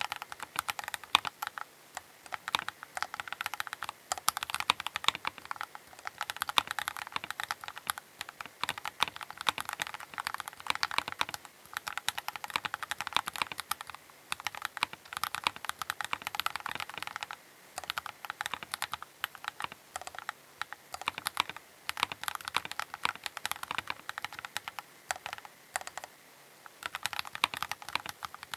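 Keychron K8 Pro mechanical keyboard being typed on: a quick run of key clicks and key-bottoming clacks, broken by a few brief pauses in the second half.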